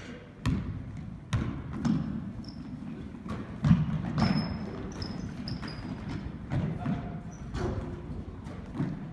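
A basketball bouncing and thudding on a hardwood gym floor, with sharp irregular impacts, and short high sneaker squeaks as players cut and stop.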